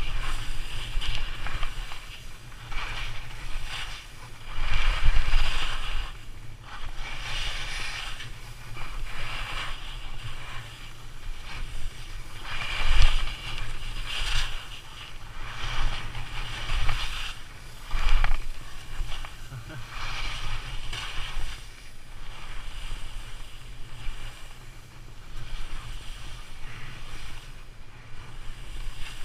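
Skis swishing through soft spring snow in repeated turns, the hiss swelling with each turn about every one and a half to two seconds, over a low rumble of wind on the microphone.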